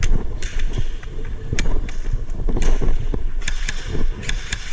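Airsoft guns firing single shots at irregular intervals, about eight sharp cracks and short hissing bursts, over a steady low rumble from the player moving with the camera.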